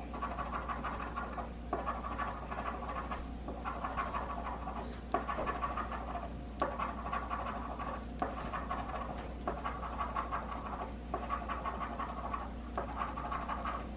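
Scratch-off lottery ticket being scratched, the latex coating rasped off in repeated runs of short strokes, each run lasting a second or two with brief pauses and a sharp tick between them.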